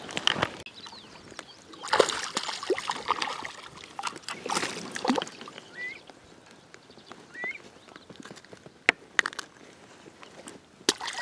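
Water splashing as a hooked largemouth bass thrashes at the surface, in two bursts a couple of seconds apart. Two short high chirps follow in a quieter stretch.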